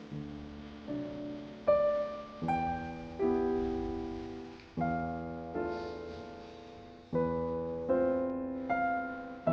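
Background music: a piano playing a slow, gentle tune, notes and chords struck every second or so and left to ring and fade.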